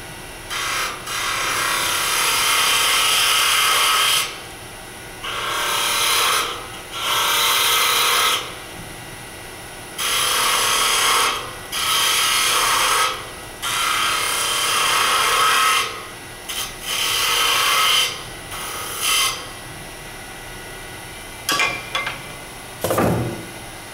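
Hand-held turning tool cutting into a wood blank spinning on a lathe, in about eight scraping passes of one to three seconds with short pauses between. A few short knocks come near the end.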